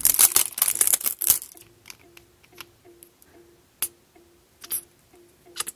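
Packaging of a cosmetic tube being torn open and the tube pulled out: about a second and a half of tearing and crinkling, then a few sharp clicks as the tube is handled.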